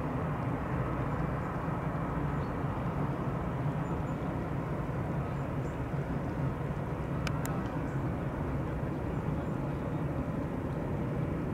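Airbus A319 jet engines at taxi power, a steady distant hum as the airliner taxis.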